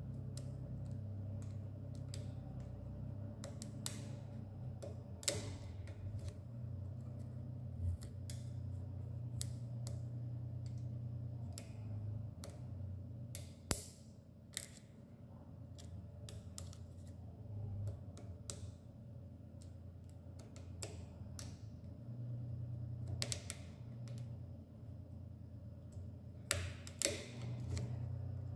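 Irregular small metal clicks and ticks from a Lishi VA2T pick being worked in a car lock's wafers, over a low steady hum.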